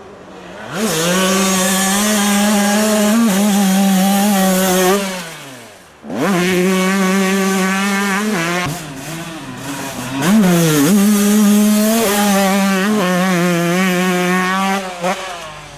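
Two-stroke motocross bike engines held at high revs as riders pass, the pitch dipping and climbing again several times. About five seconds in, one bike fades out with falling pitch, and another starts loud just after.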